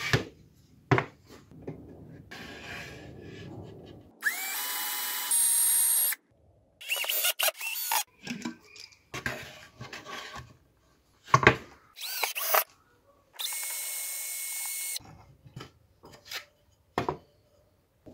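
Several short bursts of a power drill running on plywood, one starting with a rising whine as the motor spins up. Between them come sharp knocks of wooden parts being handled and set down.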